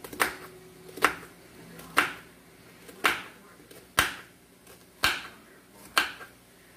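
Kitchen knife cutting into a peeled yellow onion on a cutting board: a crisp snap with each cut, about one a second, seven in all.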